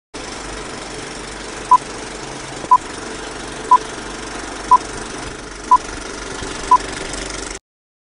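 Old-film countdown sound effect: a steady film-projector running noise with a short high beep once a second, six beeps in all. It cuts off suddenly near the end.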